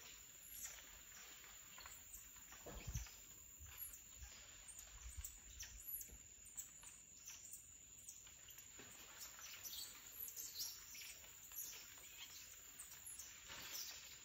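Faint, scattered high chirps and leaf rustling from the tree canopy, with a low thump about three seconds in.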